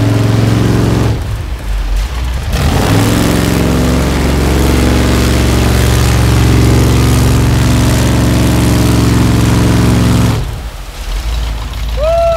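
An 800-horsepower monster truck's engine revving hard at full throttle while its 66-inch tires spin in deep mud, trying to back out of the bog. The revs drop away briefly about a second in and again near the end.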